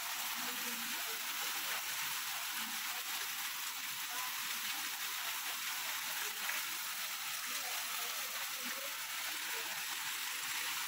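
Heavy monsoon rain pouring down in a steady, dense hiss.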